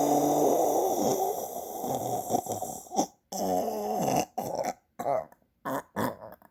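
Snoring: one long snore lasting about three seconds, then after a brief pause a shorter pitched snore. It breaks into a run of short, choppy snorts with silences between them toward the end.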